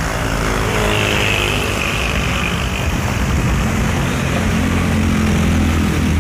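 Heavy diesel truck engine running close by as the truck moves, growing a little louder in the first second, with a brief high whine from about one to two and a half seconds in.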